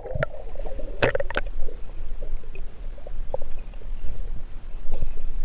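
Muffled underwater rumble and gurgle of river water heard through a submerged camera, with a few sharp knocks in the first second and a half.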